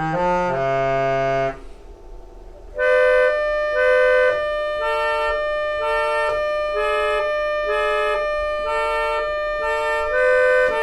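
Bontempi electric chord organ's reeds. A chord sounds and cuts off about a second and a half in, leaving the hum of the organ's blower motor. From about three seconds the keyboard plays a held note over a repeating figure of short, alternating lower notes, in a reedy, accordion-like tone.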